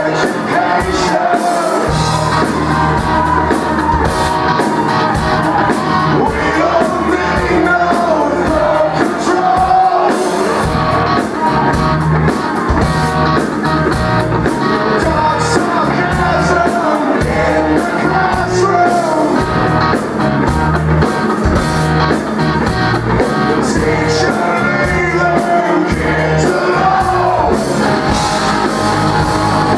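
Live rock band playing a song, with drums and guitars under a sung vocal line.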